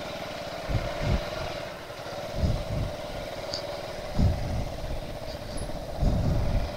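Motorcycle engine running steadily as the bike rolls slowly over a rough dirt track, with several low thumps every second or two.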